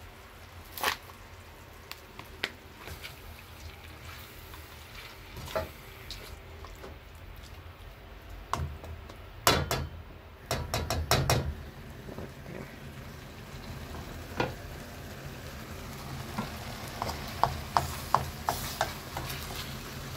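A spoon stirring and scraping chicken curry in a stainless steel pan, with sharp knocks of the spoon against the pan, a cluster in the middle and a quick run of clicks near the end, over a low sizzle of frying.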